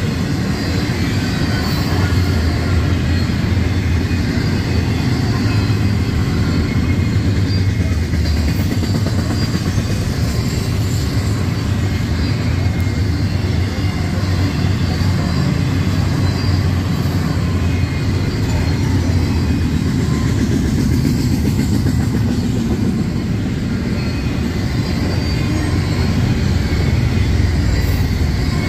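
Union Pacific double-stack intermodal train's well cars rolling past, their steel wheels running on the rails in a steady, continuous noise that is strongest low down.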